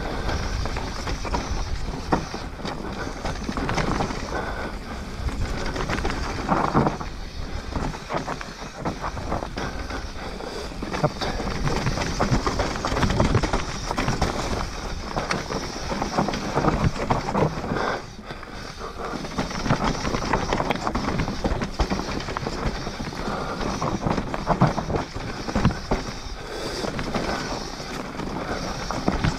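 Mountain bike riding fast down a dirt trail: tyres rolling over loose ground and the bike rattling over bumps, with wind noise on the microphone.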